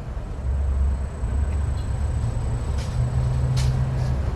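Cat purring loudly and steadily while being petted: a pulsing low rumble whose pitch steps up about three seconds in.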